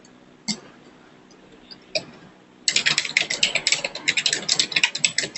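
Typing on a computer keyboard: a couple of single key clicks, then from about two and a half seconds in, a fast run of keystrokes.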